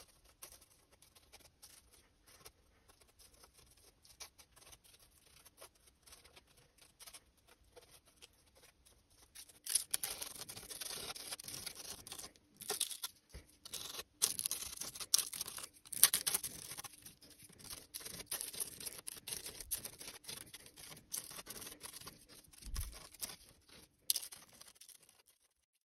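Dried wallpaper paste being scraped and poked out of the gaps in a jute-cord lampshade ball with the handle end of a paintbrush: a run of quick scratches and crackles, faint at first and louder from about ten seconds in, stopping abruptly near the end.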